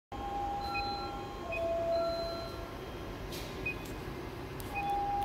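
Two-tone electronic chime, a higher note then a lower one, each held about a second, starting over again near the end, with a couple of faint clicks.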